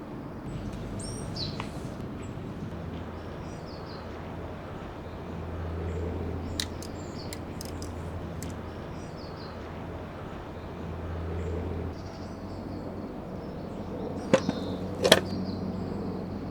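Outdoor ambience of small birds chirping over a low steady hum that swells twice, with two sharp clicks near the end.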